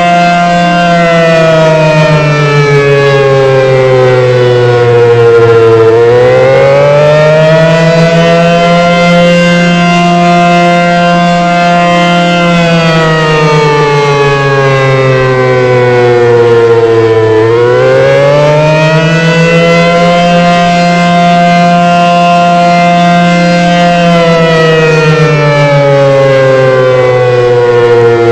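ACA Banshee 115 outdoor warning siren sounding loudly and continuously. Its pitch sags slowly and climbs back again about every 11 seconds, the wavering wail of the attack signal during a siren test.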